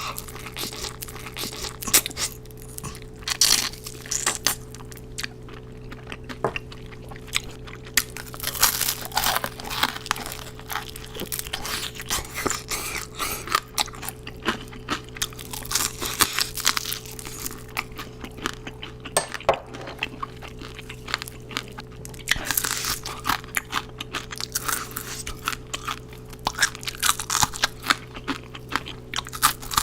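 Crunching and chewing of crispy fried chicken skin, bite after bite, with irregular crisp cracks throughout over a steady faint low hum.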